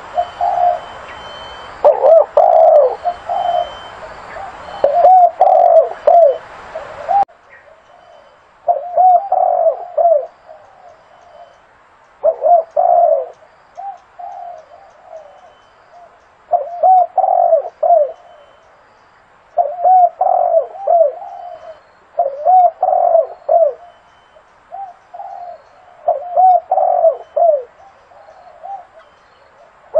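Zebra dove cooing: short phrases of quick, rippling notes, repeated every two to three seconds. A steady hiss lies behind the first seven seconds or so and cuts off suddenly.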